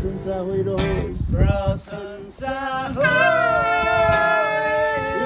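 Christian worship song sung in Nepali, with phrases of praise to God that end in one long held note from about three seconds in.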